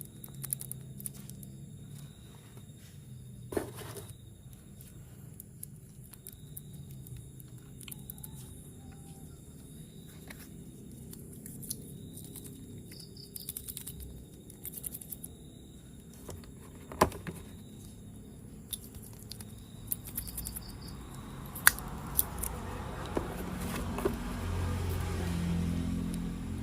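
Scattered clicks, taps and rustles of plastic toy train parts being handled, with a louder stretch of rustling and rattling building up near the end.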